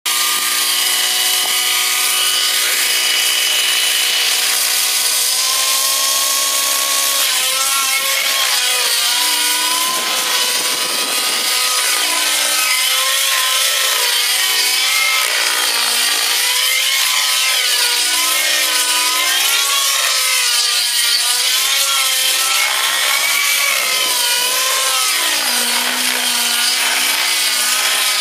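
Align T-Rex 700 model helicopter's nitro engine and rotor flying 3D aerobatics. It holds a steady engine note for about the first seven seconds, then whines up and down in pitch again and again as the helicopter manoeuvres.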